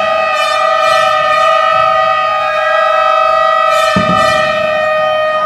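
Background music: one long note held steady in pitch, with a few light percussion hits above it.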